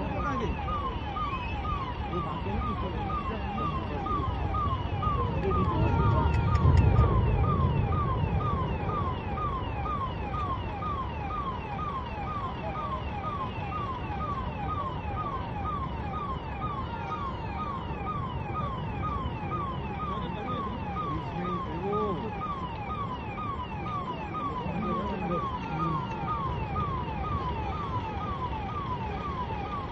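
An electronic warning tone repeats steadily, a short falling chirp a little under twice a second, like a vehicle alarm or warning beeper. Under it is a low rumble that swells to its loudest about six to eight seconds in, then settles.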